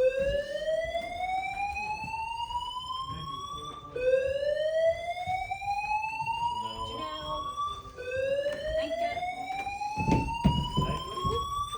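Building fire alarm sounding a slow whoop: a tone climbs steadily for about four seconds, drops back and starts again, three sweeps in all. There are a few low thumps near the end.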